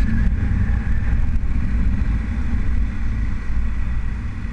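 Motorcycle under way at road speed: a steady engine drone mixed with dense low wind rumble on the microphone.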